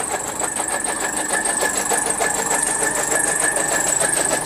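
Motor-driven chaff cutter running steadily, chopping sugarcane stalks into fodder, with a fast, even chatter over a steady whine.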